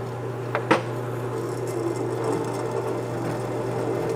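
Drill press motor running steadily with a number 7 twist drill spinning as it is fed into a steel bracket, with two short clicks a little over half a second in.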